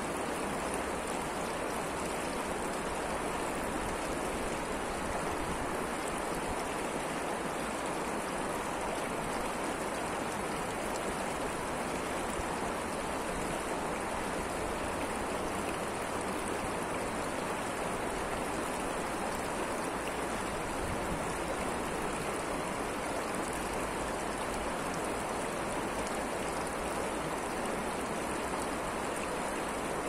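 Mountain river flowing, a steady, unbroken rush of water.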